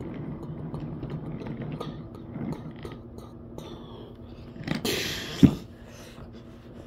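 Toy double-decker commuter coaches pushed by hand along a toy track, with small clicks and rattles of wheels and couplings. About five seconds in comes a short rushing noise and then a sharp knock, the loudest sound.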